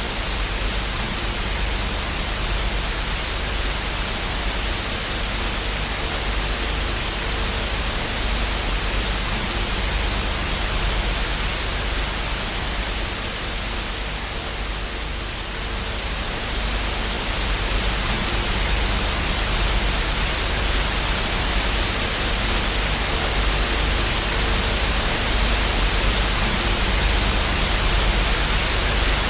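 Analog television static: a steady hiss of white noise with a low hum underneath, dipping a little about halfway through.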